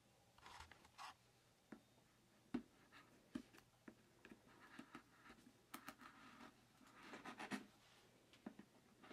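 Faint handling of a cardboard product box: light taps, scrapes and rustles as it is shifted and set down on a cloth-covered table, with one sharper tap a couple of seconds in and a longer stretch of rustling near the end.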